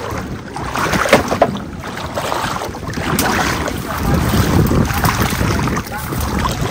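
Splashing and sloshing in shallow floodwater, with wind buffeting the microphone.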